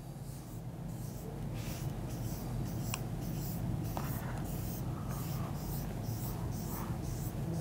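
Dry-erase marker drawing on a whiteboard: a quick run of short scratchy strokes, one after another, as small curved shapes are drawn, over a steady low room hum.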